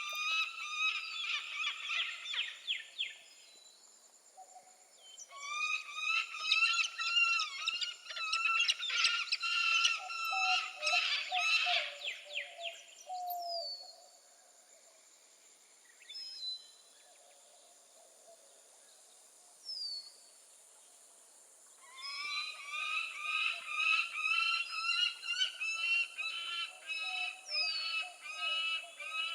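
Peregrine falcon calling in three long bouts of rapid, harsh repeated notes, with quieter pauses between them that hold a few short down-slurred notes.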